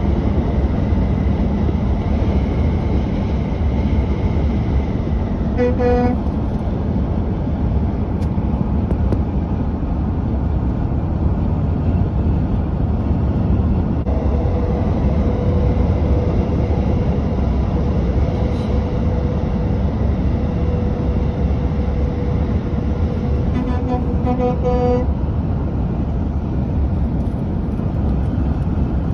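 Steady road-traffic noise from passing vehicles, with a short vehicle-horn blast about six seconds in and a longer horn blast, about a second and a half, near the end.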